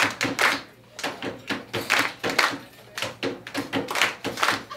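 Hands slapping, tapping and clapping on a low box in a quick rhythmic body-percussion routine, a dense run of sharp knocks with a brief pause about a second in.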